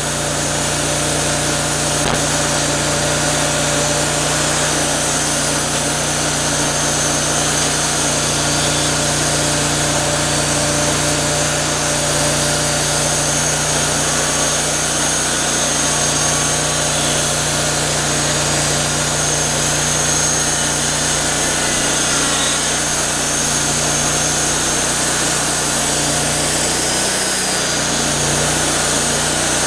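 Wood-Mizer LT40 band sawmill running steadily at a constant engine note, its band blade sawing through a large pecan log.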